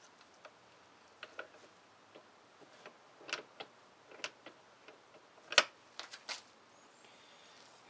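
Irregular sharp clicks and taps of small metal parts being handled and seated by hand inside a hydrostatic transmission case. The loudest is a single sharp clack about five and a half seconds in.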